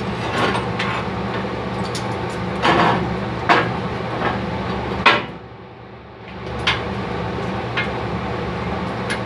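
Scattered sharp metallic knocks and clinks of steel pieces being handled, over a steady machine hum that drops out for about a second a little past halfway.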